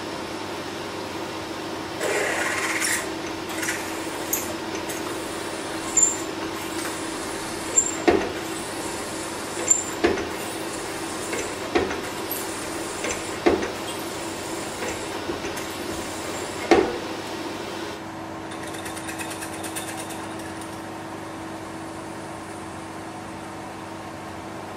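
Milling machine spindle running with a steady hum while a twist drill pre-drills a hole in the metal vise body for reaming. Sharp knocks come every couple of seconds, with a few short high squeals from the cutting. After about three quarters of the way through, the cutting sounds stop and the spindle runs on alone.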